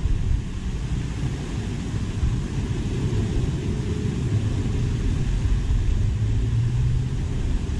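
Steady low rumble of wind buffeting the microphone, fluttering unevenly.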